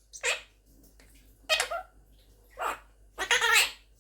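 Quaker parrot (monk parakeet) making four short calls, the last one the longest.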